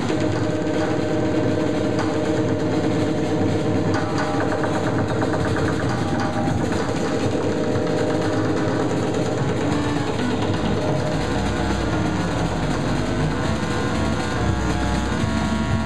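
Loud live experimental noise music: a dense, distorted drone played through effects units and amplifiers, with sustained held tones over a noisy wash. A deep low rumble comes in about eleven seconds in.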